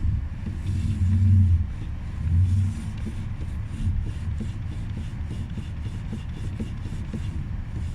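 Lada Vesta's 1.8 engine idling, heard from inside the cabin, with a low rumble that swells twice in the first three seconds. Through it come faint, light knocks from the steering rack, which rattles only in hard frost and has already grown much weaker as the car warms.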